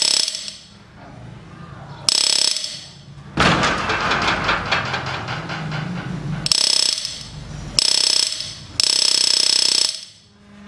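Homemade DC-motor door alarm going off: a small motor's rapid mechanical rattling with a high, shrill metallic ringing. It starts and stops abruptly several times, in short bursts around one longer rattling stretch in the middle.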